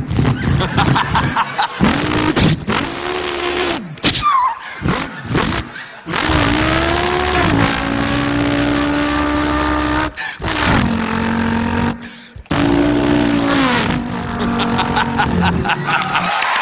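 A man imitating a racing car's engine with his voice: revving up, then long held notes that step down in pitch like gear changes, broken by a few short pauses.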